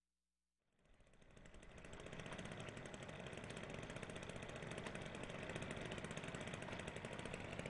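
An engine running steadily with a fast, even pulse, fading in about half a second in.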